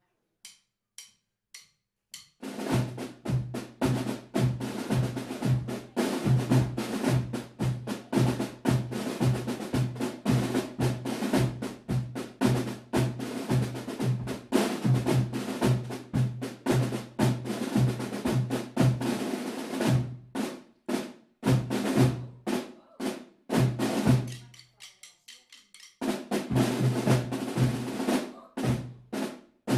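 A small ensemble of snare drummers plays a rapid, loud drum piece with rolls, after four short clicks at the start. About twenty seconds in the playing breaks into a few spaced single strokes. Around 24 seconds it drops to a soft passage, then comes back loud.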